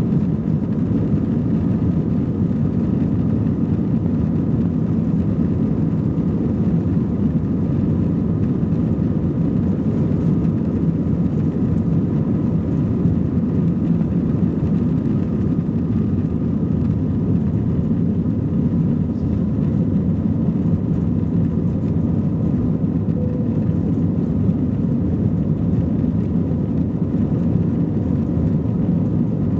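Airbus A321-200 jet airliner heard from inside the cabin during the takeoff roll and lift-off: a steady, loud low rumble of engine and airflow noise with a faint, even whine above it.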